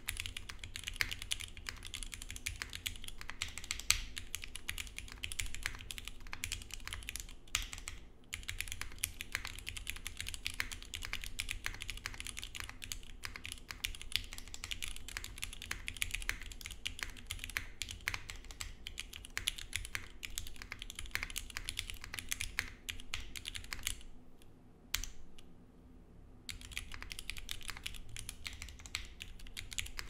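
Typing on a Matrix 8XV 3.0 mechanical keyboard with Cherry Nixie switches (bottom housings lubed), a carbon-fiber full plate, Poron gasket mount and no foam, and GMK keycaps. Fast, continuous keystrokes, with a brief pause about a third of the way in and a pause of about two seconds near the end, broken by a single keystroke.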